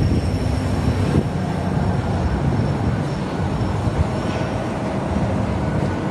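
Steady low rumble of heavy vehicles running.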